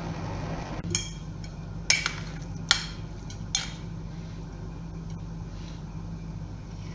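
A metal spoon clinking four times against a ceramic bowl while scooping out chopped-chicken batter, over a steady low hum.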